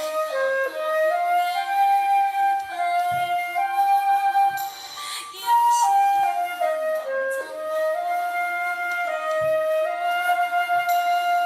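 Flute playing a slow melody in long held notes over a lower accompanying line, part of a flute-and-violin duet arrangement.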